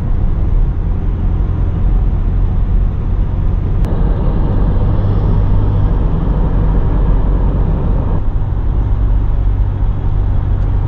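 Steady road and engine noise inside a moving car's cabin, a low rumble that shifts slightly about four and eight seconds in.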